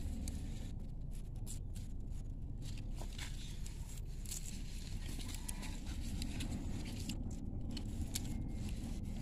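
Hands breaking up loose, damp soil and pulling arrowroot rhizomes out of it: soft rustling and crumbling in short, scattered strokes over a steady low rumble.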